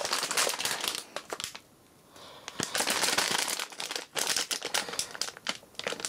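Plastic anti-static bag around a graphics card crinkling and crackling as it is handled, with a short pause about two seconds in.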